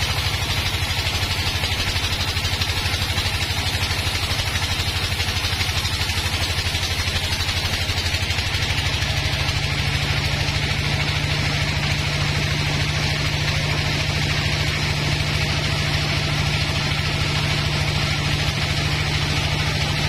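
Band sawmill running steadily as its blade rips lengthwise through a bayur (Pterospermum javanicum) log. A steady low engine hum with a fine even pulse sits under the hiss of the cut.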